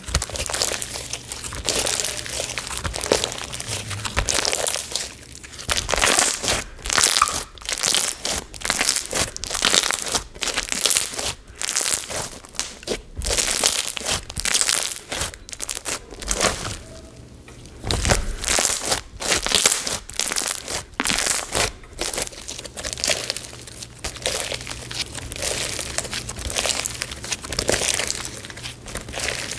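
Crunchy white-glue slime packed with silica and blockbeads being squeezed and pressed by hand, giving a dense run of crackles and crunches, with a short lull about halfway through.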